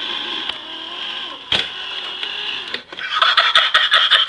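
Electric can opener motor running as it turns a heavy 6.6-pound steel can and cuts around the lid, with a steady whine. There is a single sharp knock about a second and a half in, and from about three seconds the running turns into rapid clicking chatter.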